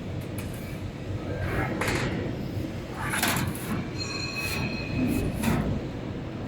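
Hydraulic press brake working: a steady running noise with several short hisses and a brief high squeal about four seconds in.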